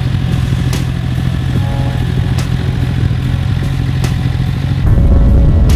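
Motorcycle engine idling steadily, with a few sharp clicks over it. Near the end the sound cuts to louder music.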